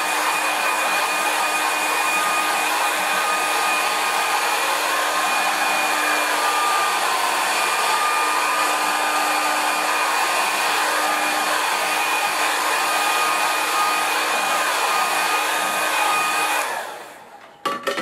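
Revlon handheld hair dryer blowing on wet watercolour paint to dry it: a steady rush of air with a steady motor whine. It switches off near the end, followed by a couple of short clicks.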